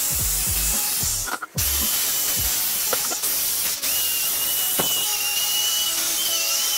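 A small power tool runs with a steady hiss, cutting out for a moment about one and a half seconds in. A high, slightly wavering whine comes in about four seconds in.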